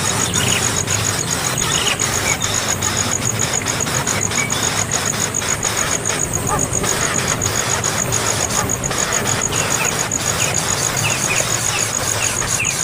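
A bird gives short, high, falling chirps, over and over, which come more often near the end. Under them runs a loud steady hiss and a fast pulsing high-pitched tone.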